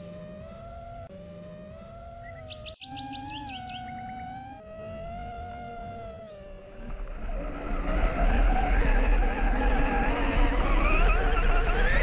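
Small electric motors whining, their pitch wavering. From about seven seconds it is much louder, with several whines at once over wind rumbling on the microphone.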